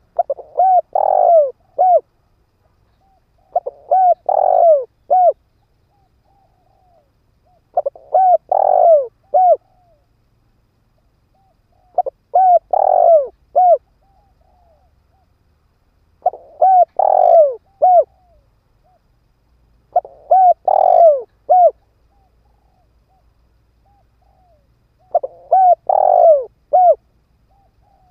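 Spotted dove (cu gáy), a decoy male, cooing in repeated phrases of a few low coos about every four seconds, seven phrases in all, with soft single coos between. It is the call used to draw wild doves in.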